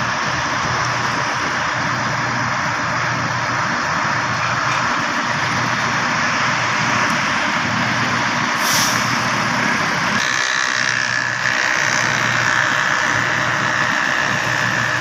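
Schwing truck-mounted concrete boom pump running, a steady diesel engine and machinery drone. A short burst of hiss comes about nine seconds in, and a steady high whine joins about a second later.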